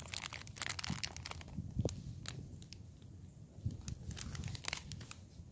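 Plastic chocolate-bar wrapper crinkling close to the microphone as the bar is bitten and eaten, in irregular clusters of crackles, densest in the first couple of seconds and again about four seconds in.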